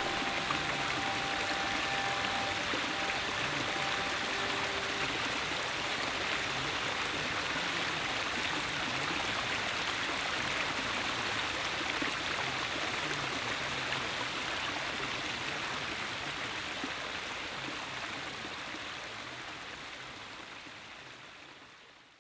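Running stream water, a steady rushing that fades out gradually over the last several seconds.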